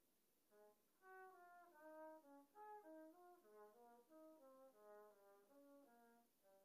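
Faint trumpet playing a quick line of short separate notes, which starts about half a second in after a brief pause.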